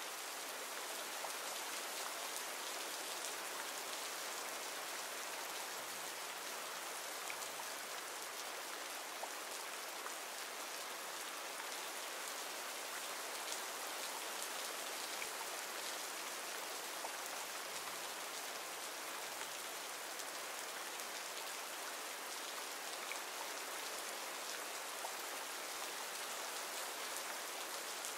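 Recorded rain ambience: steady rain falling, a dense even hiss scattered with fine drop patter.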